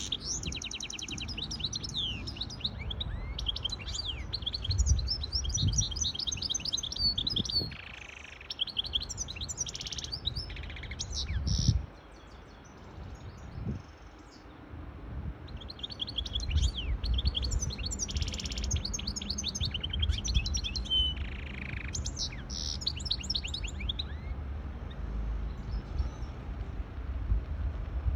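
Goldfinch hybrid singing: long, fast twittering phrases of trills and buzzy notes. It pauses for a few seconds about twelve seconds in, sings again, then falls quiet near the end, over a low background rumble.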